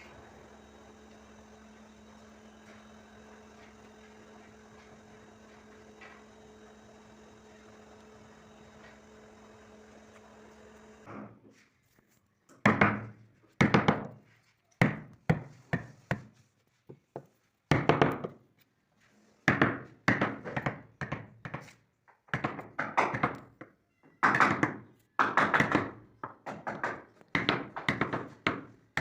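A faint steady hum for about the first eleven seconds, then a run of loud, sharp knocks roughly once a second, irregularly spaced, each dying away quickly: a wooden mallet striking a carving chisel into wood by hand.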